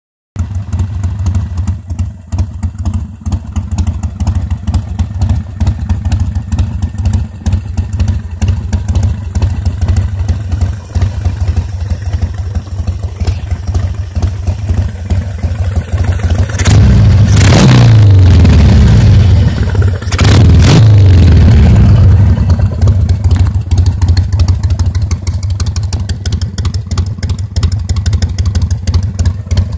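Harley-Davidson Sportster 1200 Seventy-Two's air-cooled V-twin, fitted with Screamin' Eagle exhausts and air filter, idling. A little past halfway it is revved hard twice, each rev held for a couple of seconds before dropping back to idle.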